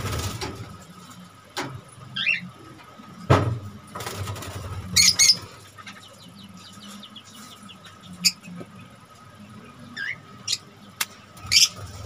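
Small caged parrots give short, high chirps and squeaks several times. A few sharp knocks and rattles come from the wire-mesh cage as a hand reaches in with a piece of corn cob.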